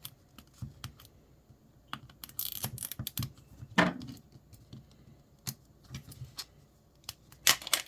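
Scattered small clicks and taps of a hard plastic Miniverse capsule ball being handled and worked at to open it, with a short scratchy rustle about two and a half seconds in, a stronger scrape near four seconds and a couple of louder clicks near the end.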